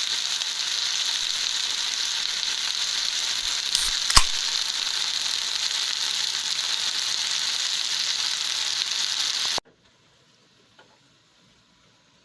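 Food sizzling steadily in a frying pan, with two sharp clicks about four seconds in. The sizzling cuts off abruptly near the end.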